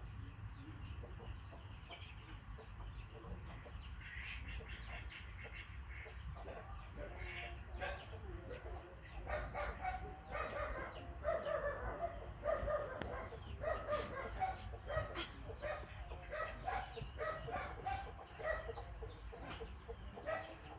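Many short animal calls in quick succession. They start about four seconds in and grow louder and busier through the second half, over a low steady rumble.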